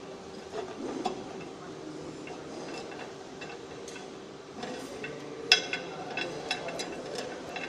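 Metal parts of a drill press stand clicking and clinking as it is handled, a cluster of sharper clicks from about five seconds in, over a steady hum.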